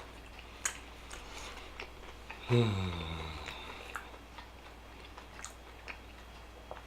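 Close-miked chewing of a big mouthful of burger, with scattered wet mouth clicks. About two and a half seconds in there is a short, low, contented hum that falls in pitch.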